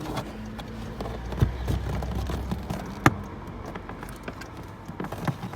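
Plastic interior trim panel of a Citroen C4 Cactus being handled and pushed back into place, with two sharp clicks from its plastic clips, the louder one about three seconds in, among smaller rattling ticks.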